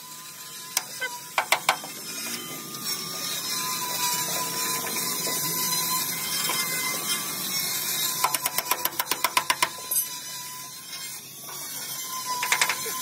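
Hand-tool work on metal in a truck workshop: short runs of sharp metallic clicks, a fast run of about eight a second lasting over a second, over a steady hiss and a faint steady whine.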